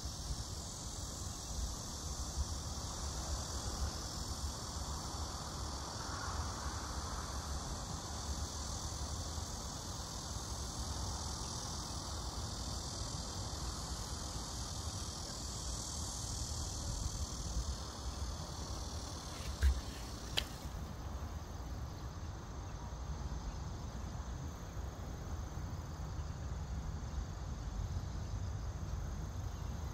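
Steady high-pitched chorus of singing insects, with a low rumble underneath. Two sharp clicks come about two-thirds of the way through.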